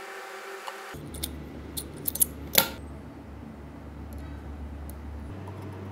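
Small drill running steadily as it bores through a thin aluminium bracket, stopping abruptly about a second in. Then a few light metallic clicks and clinks as small aluminium parts are handled and fitted onto an aluminium frame, the loudest about two and a half seconds in.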